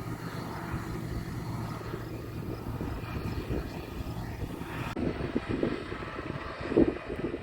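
A vehicle engine running steadily with a low hum. About five seconds in, the sound cuts to uneven low rumbles, loudest near the end.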